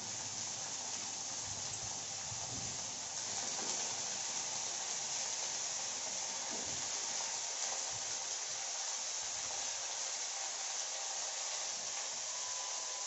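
Chopped spinach and spring onion greens sizzling in hot oil in a kadhai: a steady high hiss, a little louder about three seconds in.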